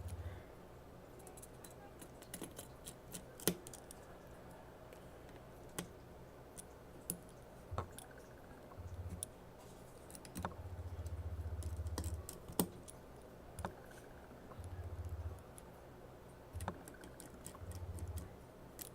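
Scattered small clicks and taps of a screwdriver and tiny parts while an iPhone 6's screws are being put back in, with a few stretches of low hum.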